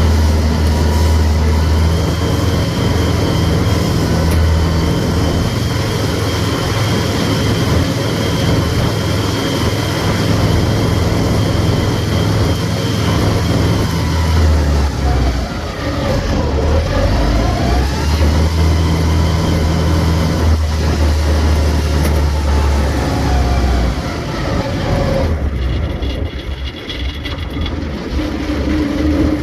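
Farm machinery's diesel engine running steadily with a deep hum. The hum dips briefly about halfway through, and a little after that the pitch slides down and back up. Near the end the sound loses some of its top.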